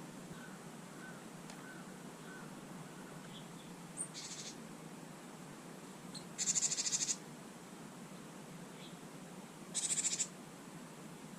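Birds at a garden bird bath: three short, harsh, rapidly pulsing bursts, the second the longest and the loudest.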